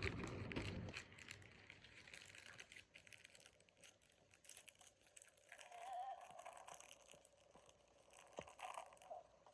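Mostly near silence, with faint crinkling and tearing of plastic packaging in the first second and a few soft clicks near the end as a Jibbitz pack is opened.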